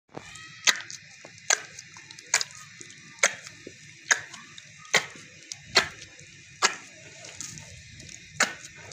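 Dough being kneaded by hand in a bowl, a sharp regular slap or knock about once a second.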